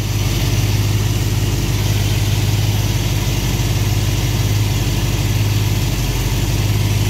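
Mopar engine idling steadily at about 760 RPM, its initial ignition timing set at about 10 degrees.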